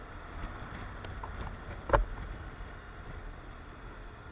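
Honda NC750X's parallel-twin engine running at low road speed under a steady wash of wind noise on the camera microphone, with a single sharp knock about two seconds in.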